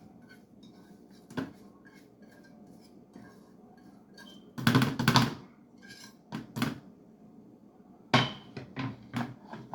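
Kitchen handling sounds: a few sharp knocks and clatters of bowls and utensils on a counter, the loudest cluster about halfway through.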